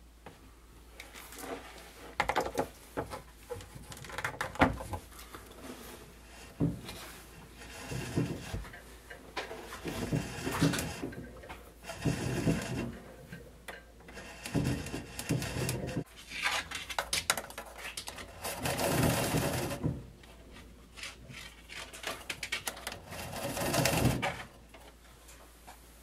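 Thin doorbell wire being drawn off and pulled along through the joists, rubbing and scraping in irregular bursts with short clicks and knocks of handling.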